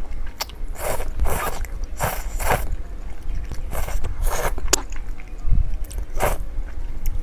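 Close-miked slurping and chewing of glass noodles from a self-heating hotpot, a string of short slurps about once a second.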